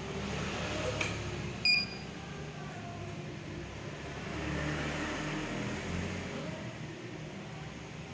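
One short, high electronic beep about two seconds in, just after a faint click, over a steady background rumble.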